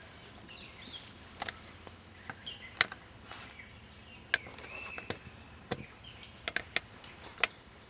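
Outdoor background with faint bird chirps and a scattering of sharp, irregular clicks and snaps, about a dozen, the loudest near the middle and toward the end.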